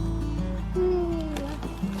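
Background music: held low notes under a slow melody line that glides gently downward partway through.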